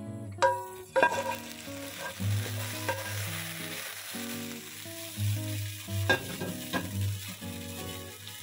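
Hot ghee tadka poured from a frying pan onto haleem, sizzling. A wooden spoon scrapes and knocks against the pan, then stirs the pot. The sizzle is strongest in the first few seconds.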